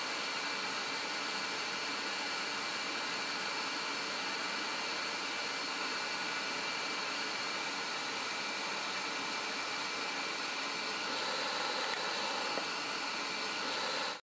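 CO2 laser cutter running as it cuts a gear out of acrylic sheet: a steady machine hiss with a few constant high tones, cutting off suddenly near the end.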